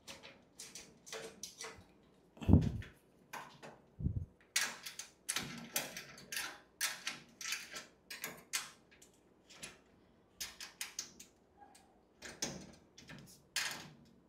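Metal clicks and knocks as casters are screwed onto the steel base plate of a filing cabinet, a quick irregular run of clinks with two dull thumps in the first four seconds.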